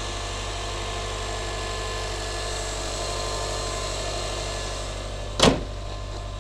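A 2012 Subaru WRX STI's turbocharged flat-four engine idling steadily. About five seconds in, the hood is shut with a single loud slam.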